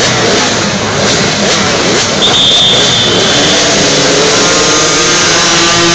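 A grid of minimoto pocket bikes, their small two-stroke engines revving together. From about halfway through they pull away and their pitches climb together as the bikes accelerate off the start. A brief high steady tone sounds about two seconds in.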